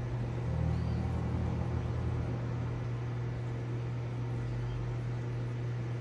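Steady low hum from the reef aquarium's pump, over a faint even hiss. The hum is a little fuller for a second or two near the start.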